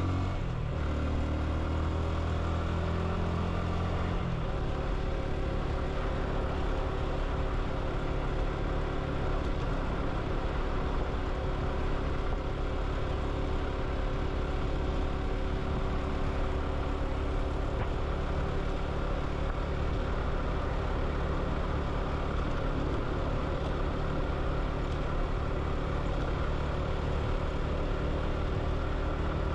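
Vehicle engine running steadily while under way, with road noise. The engine's pitch drops in the first second, and its low drone shifts about four seconds in, then holds steady.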